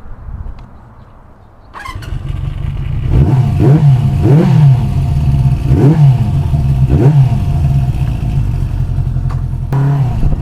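Honda CB350 Four's inline four-cylinder engine running; it gets suddenly louder about two seconds in, then rises and falls in pitch four times as it is revved, and runs steadier near the end.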